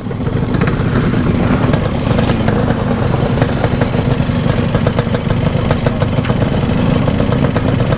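Yamaha RX-King 135 cc single-cylinder two-stroke motorcycle engine running steadily while riding, with the rapid crackle of its exhaust.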